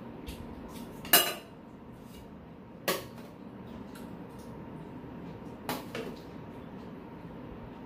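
Metal spoons clinking and scraping against stainless steel bowls. There are three sharp clinks, the loudest about a second in and the others near three and six seconds, with fainter ticks between, over a steady low hum.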